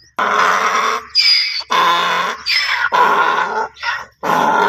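Donkey braying loudly, starting about a quarter second in: a run of hee-haw cycles, long harsh rasping notes alternating with shorter high squealing notes that fall in pitch.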